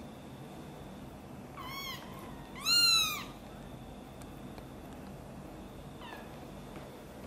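Tiny kitten mewing as its mother carries it in her mouth: two high, arching cries about two seconds in, the second louder, and a faint one near the end.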